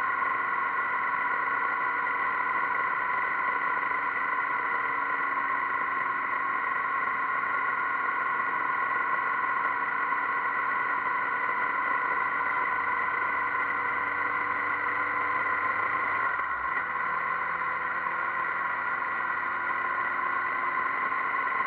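Motorcycle riding along at steady speed, heard from a bike-mounted camera: a constant mix of engine and wind noise. About sixteen seconds in the engine note briefly dips and settles at a different pitch, as with a gear change or a change of throttle.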